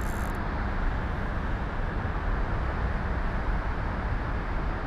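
Steady rumble of road traffic, with no single event standing out.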